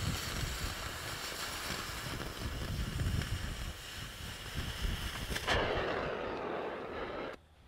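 Oxy-fuel cutting torch cutting steel in a circle-cutting jig, a steady hissing jet. About five and a half seconds in the cutting oxygen stops and a softer flame hiss is left. That cuts off suddenly near the end as the torch is shut off.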